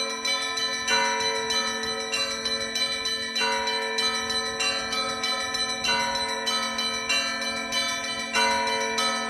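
Orthodox church bells ringing a festive peal: small bells struck in a quick repeating figure over the steady hum of larger bells. The figure begins again about every two and a half seconds.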